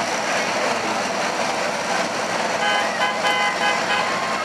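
Several old school buses running hard around a racetrack, their engines blending with crowd noise into a loud, steady din. About two and a half seconds in, a horn sounds a quick run of several short toots.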